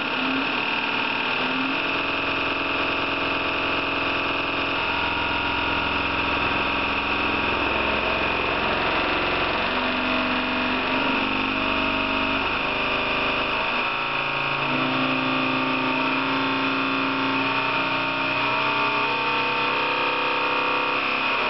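Servo-hydraulic testing machine running, shaking a clamped cantilevered strip. A steady high whine sits over a hum whose pitches shift every second or two as the drive changes.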